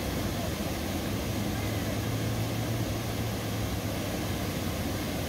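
Whitewater of the Edge of the World rapid on the Upper Ocoee River, rushing steadily over a rock ledge, with a faint low hum underneath for a couple of seconds in the first half.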